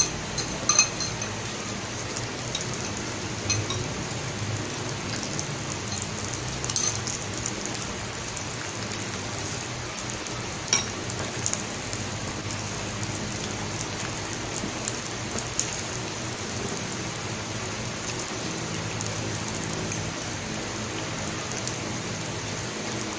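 Meat and sausages sizzling on an electric grill plate, a steady hiss, with a few sharp clicks of chopsticks and utensils against plates and the grill.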